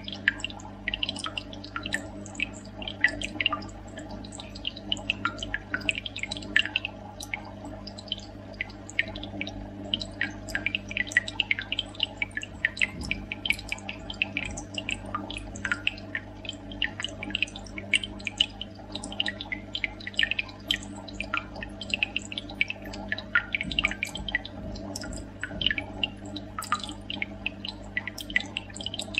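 Underwater reef ambience: dense, irregular clicking and crackling over a steady low hum.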